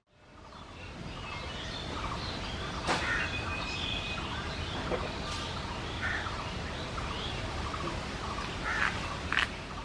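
Outdoor ambience of birds chirping and calling, fading in over the first second, with a few short sharp clicks from the squash being peeled on a boti blade.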